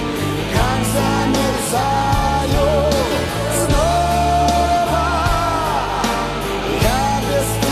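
Rock band playing live: steady bass and drums under a sustained lead melody that bends and wavers in pitch.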